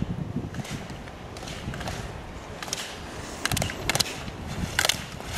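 Slalom skis scraping and carving on hard snow through the turns, over a low rumble of wind on the microphone, with a few sharp knocks near the end.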